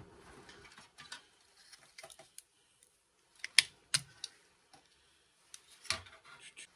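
Scattered clicks and light knocks of a PC expansion card being worked out of its slot and lifted out of a sheet-steel computer case, the sharpest two about three and a half and four seconds in.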